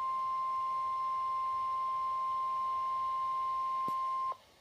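NOAA Weather Radio's 1050 Hz warning alarm tone, one steady pure tone heard through a weather radio's speaker, cutting off sharply about four seconds in. It is the alert tone that heads a tornado warning broadcast.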